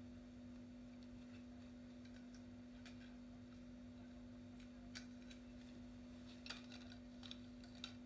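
Near silence: a steady hum with a few faint, short clicks scattered through it.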